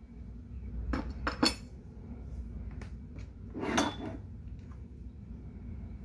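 Parts of a disassembled Colt 1911 CO2 BB pistol being handled and set down on a tabletop: three quick clicks about a second in, then a longer clatter a little before four seconds in, with a few light ticks between.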